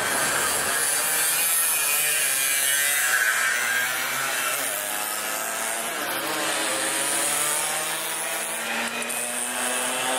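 Several small two-stroke moped engines buzzing at high revs, their pitch wavering up and down as the riders change speed, with one engine's pitch rising near the end.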